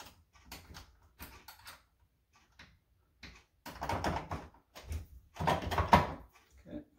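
Light metal clicks and scrapes of an Allen wrench working the set screw under a toilet paper holder post, loosening it. They come in short scattered ticks at first, then two louder bursts of knocking and rubbing, about four and six seconds in, as the hand handles the metal post.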